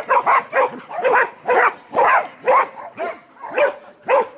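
Border collies barking in play, a run of about ten barks at a little over two a second, as they face off in play bows on their leashes.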